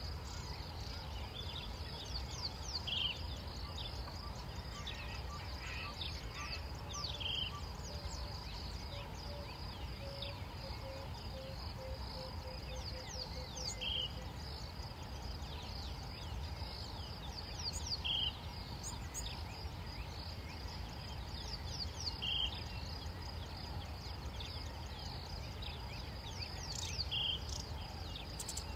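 Savanna dawn ambience: a steady high insect drone, with a short bird call repeating about every four seconds and other faint bird chirps. A run of quickening notes comes near the middle, and a low steady rumble lies underneath.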